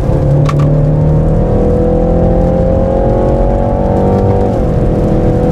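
BMW 330i's turbocharged four-cylinder petrol engine heard from inside the cabin, pulling under acceleration with the revs climbing steadily. The revs drop with an upshift about four and a half seconds in.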